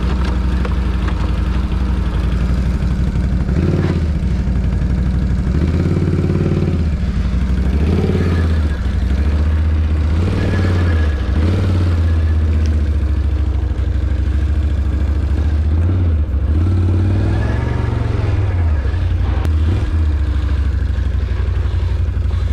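Can-Am Renegade 850 XXC quad's Rotax V-twin engine running while riding on a dirt trail, its pitch rising and falling again and again as the throttle is opened and eased off.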